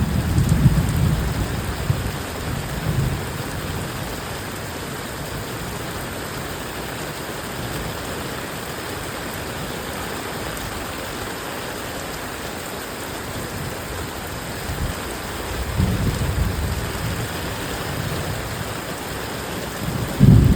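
Heavy rain falling steadily, with low thunder rumbling in the first few seconds and again about three-quarters of the way through. A louder roll of thunder begins right at the end.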